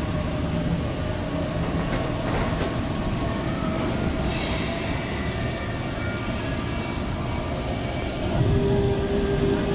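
Steady rumble of a moving vehicle, like a train running, with a few faint held tones in it. About eight seconds in it grows louder and a steady higher tone comes in.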